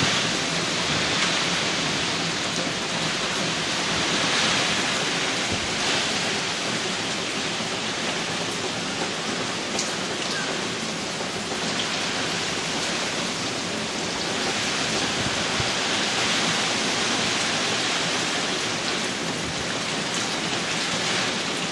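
Typhoon wind and heavy rain beating on the house, a continuous dense rush that swells and eases as gusts push in and pull back.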